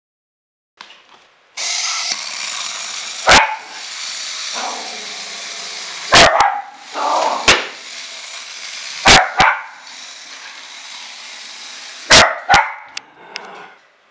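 A small dog barking in sharp single and paired barks every couple of seconds, over a steady hiss.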